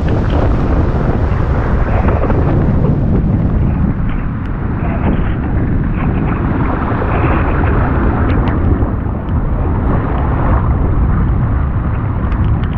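Strong gusting storm wind buffeting the microphone, with driving sideways rain hissing through it.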